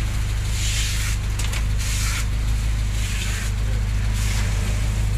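Honda Accord's 2.3-litre four-cylinder engine idling steadily through a freshly fitted 4-2-1 header, heard from under the car by the exhaust pipes, with a few short bursts of hiss.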